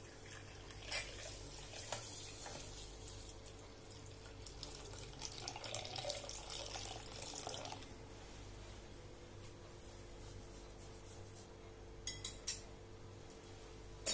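Hot milk tea poured into a stove-heated clay cup standing in a steel bowl, splashing and frothing as it fills and overflows, in two spells with the longer, louder one midway. A few light metal clicks near the end and a sharp knock at the very end.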